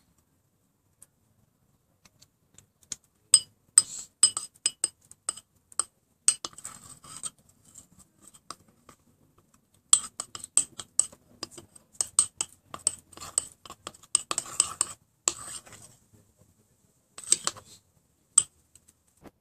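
A metal utensil beating cake batter by hand, clinking against the sides of the bowl in quick runs of strokes, in three bouts with pauses between.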